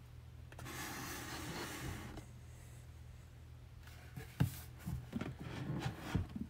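Faint rubbing and sliding for about a second and a half, then a few light knocks and clicks: hands moving things about on a tabletop.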